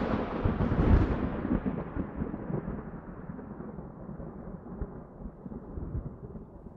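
Thunder: a loud crack with a second peak about a second in, then a long rumble that slowly fades.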